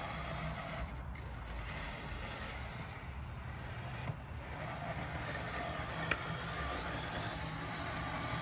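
MoeBot robotic lawn mower driving across grass, its motors running with a low steady hum. One faint click about six seconds in.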